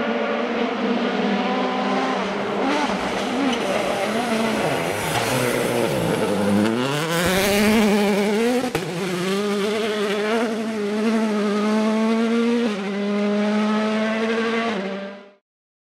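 Rally car engine at high revs on a gravel stage, dropping in pitch as it slows for a corner, then a burst of gravel spray and tyre noise as it slides past. The engine revs up again as it accelerates away, with a gear change near the end, then the sound cuts off suddenly.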